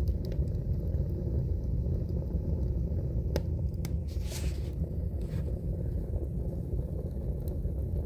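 A freshly lit wood fire drawing in a closed wood stove: a steady low rumble, with a few faint crackles and ticks and a brief hiss about halfway through.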